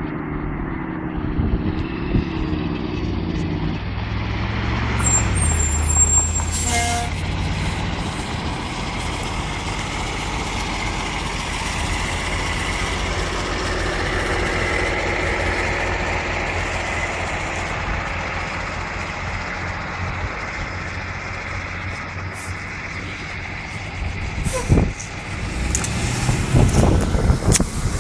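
A motor vehicle driving, with engine and road noise. The engine's pitch shifts over the first few seconds, then settles into a steady rushing noise.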